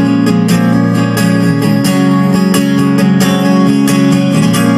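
Live band music led by strummed guitar, with steady sustained chords and regular strokes.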